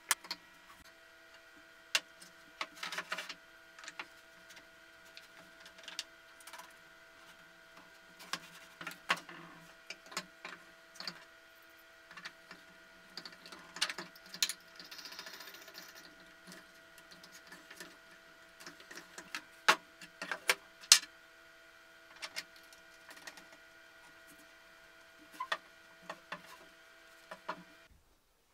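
Plywood parts of an articulating arm being handled and fitted together on a workbench: scattered sharp wooden knocks and clicks over a steady hum, which cuts off near the end.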